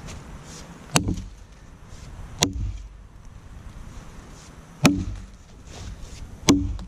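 Council Tool Boys Axe chopping into a downed log: four sharp strikes of the axe head biting the wood, about a second and a half to two and a half seconds apart.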